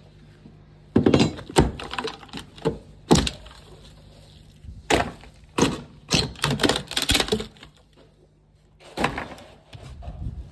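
Hand tools knocking and prying at old wooden floor framing to pull out nails: a string of irregular sharp knocks and cracks of wood, with a busy cluster in the middle and a last knock near the end.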